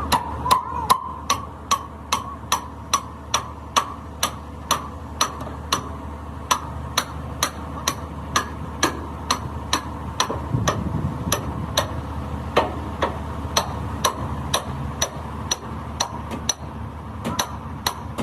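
Hammer striking metal over and over in a steady rhythm, about two to three ringing blows a second.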